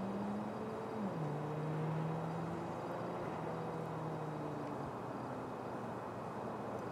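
Outdoor traffic hum with a vehicle engine note that drops in pitch about a second in, then holds steady for a few seconds before fading into the background.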